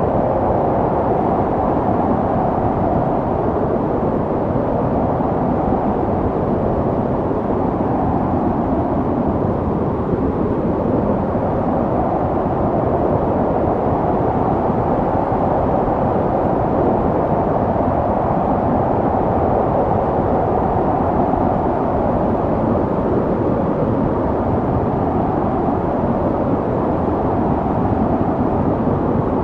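Snowstorm wind blowing steadily, a dense rushing noise that swells and eases slowly, with no separate gusts or impacts.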